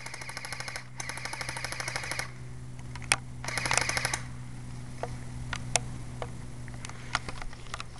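Electric airsoft guns firing full-auto: three short bursts of rapid, evenly spaced clicks in the first four seconds, then a few single sharp snaps.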